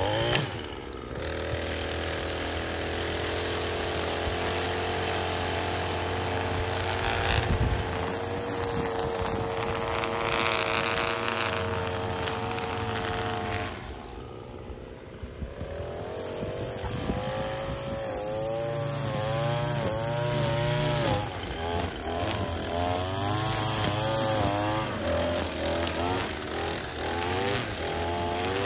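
Gas string trimmer engine running at a steady high speed. About halfway through it drops off, then revs up and down over and over as the throttle is squeezed and let go while trimming.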